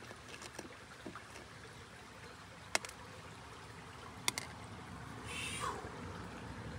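Faint steady flow of a creek, with light water movement in a plastic gold pan as fingers pick through the concentrates. There are two sharp ticks and a brief swish near the end.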